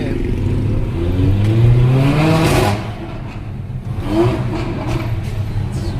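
Mercedes-AMG GLA 45's turbocharged four-cylinder engine and exhaust accelerating hard: the revs climb for about two seconds, then drop sharply as the driver lifts off. A second short rise in revs follows about four seconds in.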